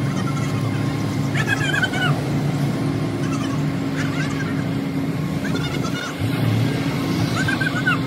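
Steady low machine hum, with short high-pitched bending calls every second or two.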